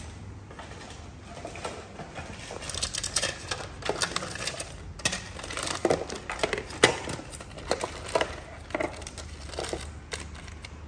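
Plastic packets and papers crinkling and rustling as they are handled and rummaged through in a plastic storage caddy, with irregular crackles and small clicks and knocks.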